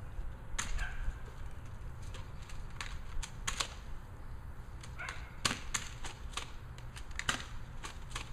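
Airsoft guns firing during a shoot-out: a run of sharp, irregular snaps, some close together and some a second or more apart, over a low rumble.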